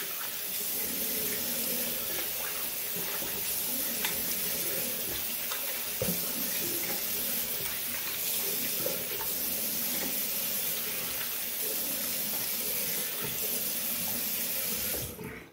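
Bathroom sink tap running steadily, with a few brief knocks and splashes, then shut off near the end.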